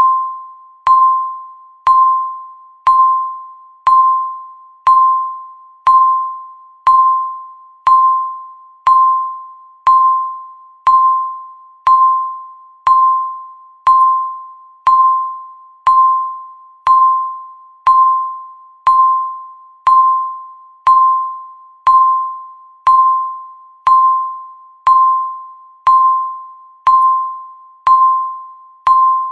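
Countdown timer beeping once a second: a single electronic tone, the same pitch each time, with a sharp start that dies away quickly, ticking off each passing second.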